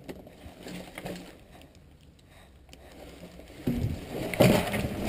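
Clothing and gear scraping and rustling against a concrete pipe and dry twigs as someone scrambles into it, with a few knocks. It is faint at first and turns loud about two-thirds of the way through.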